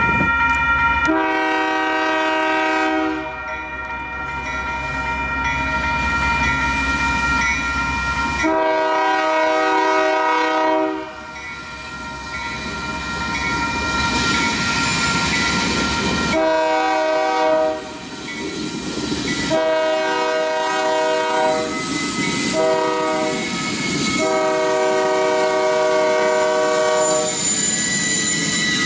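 Union Pacific #5694, a diesel locomotive, sounds its air horn for a grade crossing: two long blasts, a short one, then a final long sounding broken into several blasts as the engine reaches the crossing. Under it the crossing-signal bell rings steadily, and the locomotive's low rumble grows as it closes in.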